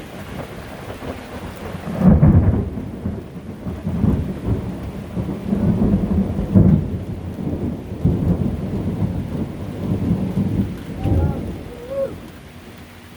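A long roll of thunder over steady rain: a loud clap about two seconds in, then rumbling on in waves for about ten seconds before fading away.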